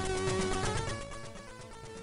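Background Commodore 64 chiptune music with a quick melody, getting quieter about halfway through.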